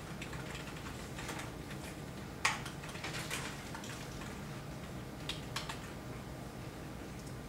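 Typing on a computer keyboard: an uneven scatter of key clicks, the loudest about two and a half seconds in, over a low steady hum.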